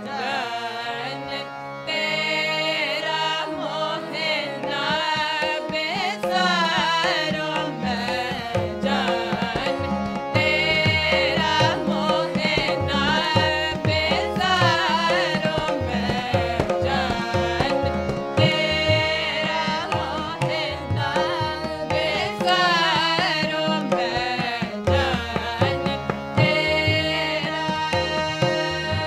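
Sikh kirtan: voices singing together over two harmoniums' steady held reeds, with tabla keeping the rhythm. The tabla strokes grow strong about eight seconds in.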